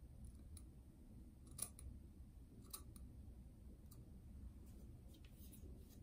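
Small mustache scissors snipping beard hair close to the face: a handful of faint, short snips spaced about a second apart, over a low room hum.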